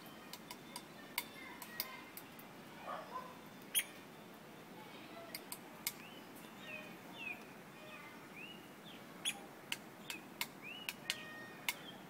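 Woodpecker pecking at wood: sharp, irregular taps, a few a second, mixed with short chirping bird calls.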